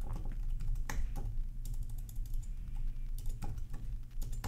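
Typing on a computer keyboard: irregular keystroke clicks at an uneven pace, over a steady low hum.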